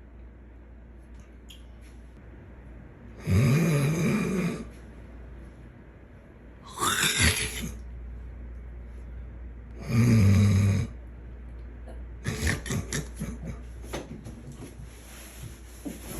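A person snoring loudly: three long, deep snores a few seconds apart, the middle one sliding up and down in pitch. Near the end comes a run of short, crackling sputters.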